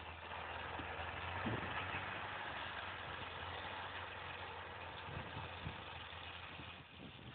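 Old canvas-topped jeep's engine running steadily at low revs in the distance as the jeep crawls through snow, a low hum under a steady hiss.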